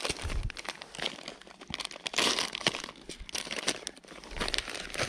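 Crinkling and crunching of dry carp groundbait being worked by hand: a run of quick, irregular rustles, loudest for a stretch around the middle.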